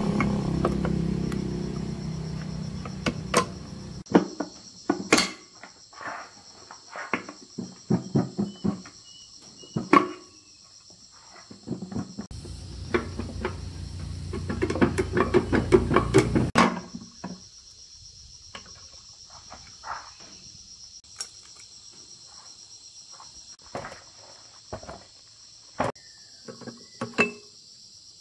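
Steady chirping of crickets, with many short clicks and knocks throughout. Two spells of a low machine hum are the loudest parts: the first cuts off about four seconds in, the second builds from about twelve seconds and cuts off abruptly near seventeen seconds.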